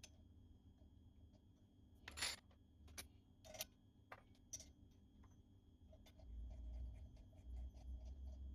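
Near silence broken by a handful of faint, light metallic clicks and clinks, a few with a short ring, of brass candelabra parts being handled and fitted together.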